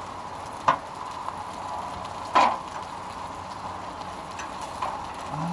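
Hash browns frying in a pan with a steady sizzle, broken by two sharp knocks, about a second and two and a half seconds in, and a fainter one near the end.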